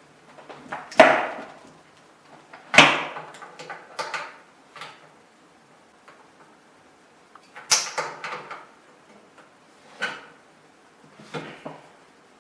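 Metal CO2 hose quick connectors knocking and clacking as the hoses are handled and tried on a CO2 jet's male connector. There are about eight separate sharp knocks, the loudest about a second in, and one near the middle carries a brief high metallic ring.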